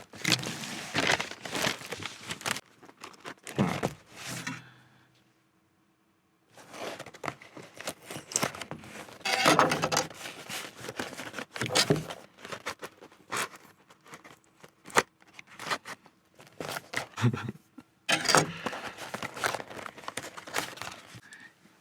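Paper and plastic takeaway packaging crinkling, rustling and tearing as burgers are unwrapped, in irregular bursts with a brief silent break.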